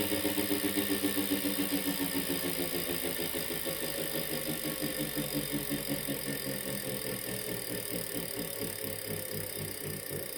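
Wahoo Kickr Core smart bike trainer running with a weird rhythmic pulsing whir. The pulses come about five a second at first and slow gradually, growing slightly quieter.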